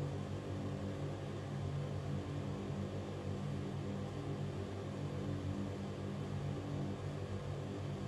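Ventilation fan running steadily: a constant low hum under an even rush of air noise.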